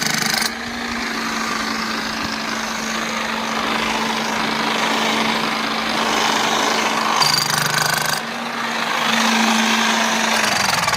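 Motor of a powered plumbing machine running steadily with a rattling, clattering noise over a constant hum, then slowing down near the end.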